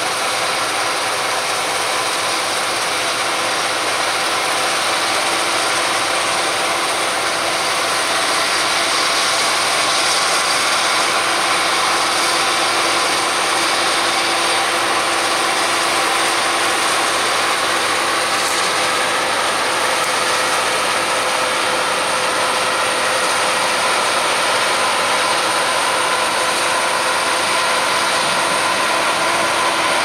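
Claas Lexion 660 combine harvester running while cutting spring barley: a steady mechanical noise of its engine and threshing machinery, with several steady humming tones on top.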